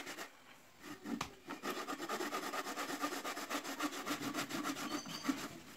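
A blade cutting into a wooden board: one stroke about a second in, then rapid, even back-and-forth strokes that stop shortly before the end.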